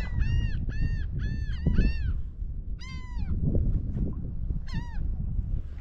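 Birds squawking: a rapid series of calls about three a second, then two single calls a second or two apart, with wind rumbling on the microphone.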